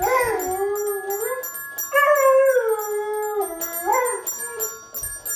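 A yellow Labrador retriever howling along with a child's toy keyboard: three long howls, each sliding down in pitch, over a few steady toy-keyboard notes.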